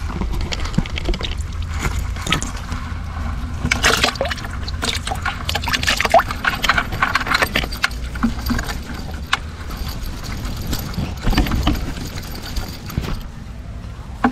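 Water splashing and dripping in many short bursts as a fistful of small fish is shaken out of a mesh bait trap into a plastic bucket of water, with the net rustling, settling down near the end.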